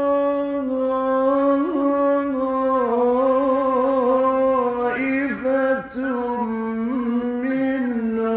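A male Quran reciter chanting in the melodic mujawwad (tajweed) style, drawing out one long phrase: he holds a note, then moves through ornamented turns, with a brief break about six seconds in.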